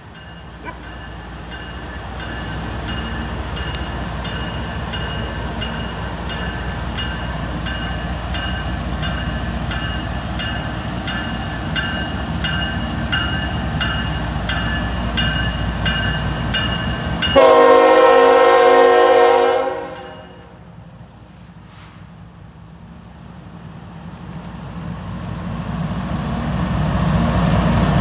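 Approaching loaded coal train with a low rumble under an evenly pulsing crossing bell. About seventeen seconds in, the lead GE ET44AH locomotive's air horn sounds one loud blast of about two and a half seconds. After the blast the locomotives' rumble grows steadily louder as they near.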